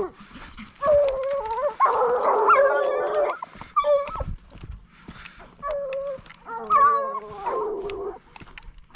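Ariégeois scent hounds baying in drawn-out, howling cries, several voices overlapping about two seconds in, then shorter single bays and another long cry about seven seconds in. This is the hounds giving tongue as they run a scent trail.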